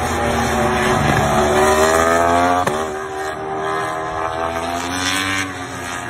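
MotoGP racing motorcycle accelerating hard past and away, its engine note climbing in pitch, breaking off sharply on an upshift about two and a half seconds in, then climbing again to another shift near the end.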